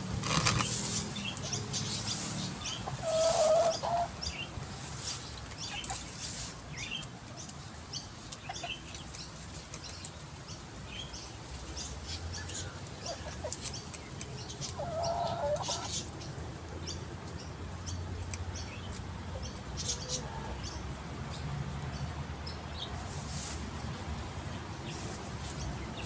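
Domestic hens foraging in grass, giving two short clucking calls, one a few seconds in and one about midway. Small scratchy rustles and clicks run under the calls.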